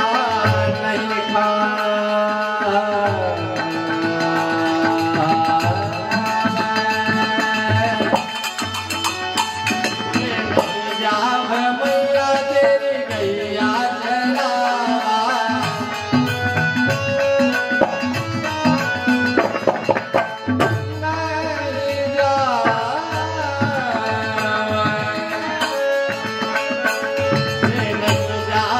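Indian folk music with tabla drumming under a continuous melody with sliding pitches.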